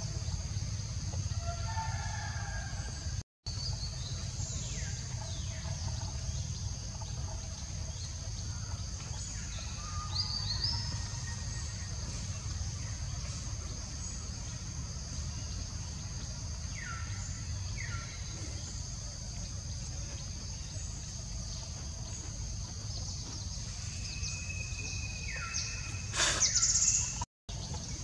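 Forest ambience: a steady low rumble under a steady high-pitched insect drone, with scattered short bird chirps. A louder, brief sharp call comes near the end, and the sound drops out briefly twice.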